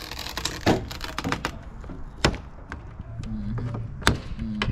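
A wire being worked through a car windshield's seal to cut the glass out, scraping, with several sharp knocks and taps on the glass and body. A low steady hum comes in about three seconds in.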